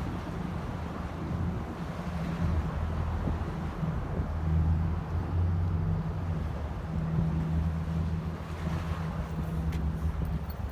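Strong wind buffeting the microphone: a steady low rumble, with a few faint ticks near the end.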